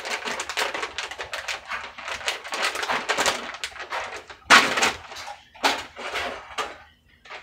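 A plastic food packet being handled and opened, crinkling in quick dense crackles, with a few louder crackles from about four and a half seconds in.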